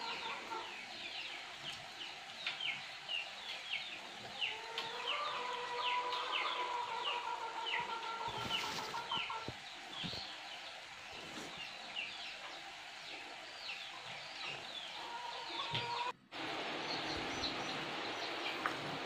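Birds chirping: quick, high, falling chirps, a few a second. A steady tone holds for several seconds in the middle. Near the end the sound drops out briefly and a steady hiss follows.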